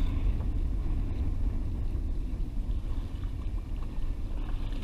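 Wind buffeting an action camera's microphone: a steady, uneven low rumble.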